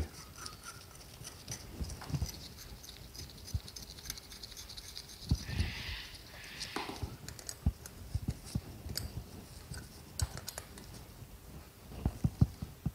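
Light metallic clicks and taps from small parts being handled on an SU carburettor as a nut is fitted on top of its throttle linkage. There is a short rustle about six seconds in and a quick cluster of clicks near the end.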